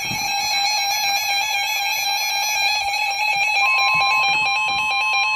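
Electronic emergency alert tones: a steady alarm tone, joined about three and a half seconds in by a second steady tone near 1 kHz, the weather radio warning tone that comes before a spoken severe weather warning.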